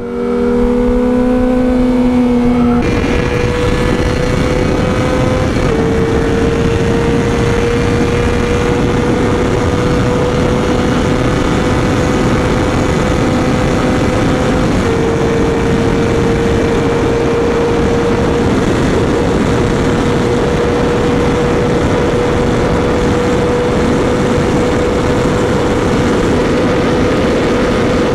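Motorcycle engine pulling at road speed under a steady rush of wind noise. The engine note climbs slowly and drops at gear changes about three, six and fifteen seconds in.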